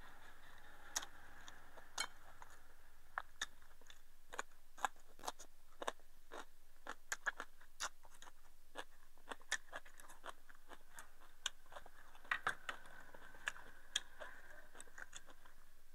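A person eating rice with chopsticks: quiet chewing and many small, irregular clicks of wooden chopsticks against a ceramic bowl.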